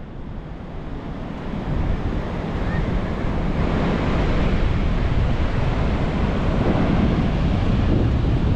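Pacific Ocean surf breaking and washing, with wind buffeting the microphone. The sound builds over the first couple of seconds, then holds steady.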